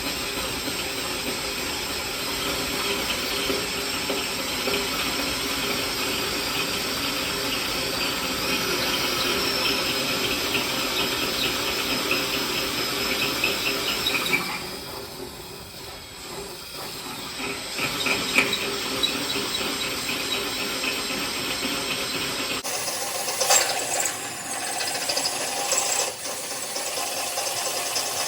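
Power drill running, its oversized bit drilling out a broken steel bolt stuck in a threaded hole. It eases off briefly about halfway through, then runs again.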